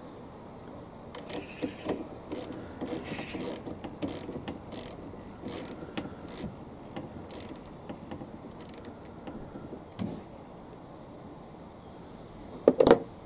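Ratchet wrench clicking in a run of short strokes as the battery terminal clamp nut is tightened, with one louder knock near the end.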